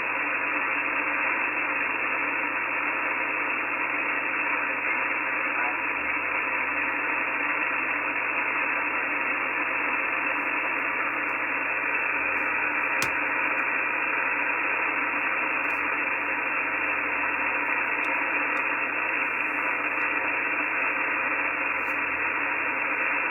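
Steady hiss of band noise from an HF radio receiver tuned to the 17-metre amateur band in single-sideband mode, trimmed to a narrow voice-width passband. A single click about 13 seconds in.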